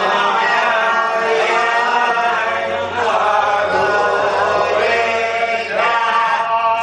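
Several voices chanting together in unison on long held notes, briefly pausing about three seconds in and again near the end.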